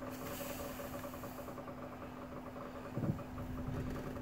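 Vehicle engine idling with a steady hum, and a brief low thump about three seconds in.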